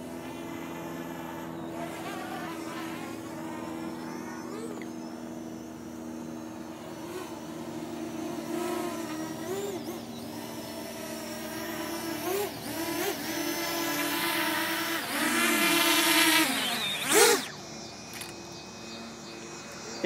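Parrot Anafi quadcopter's propellers buzzing, the pitch wavering up and down as the drone manoeuvres low and comes in to land. It grows louder as it closes in, is loudest about 16 to 17 seconds in, then drops back.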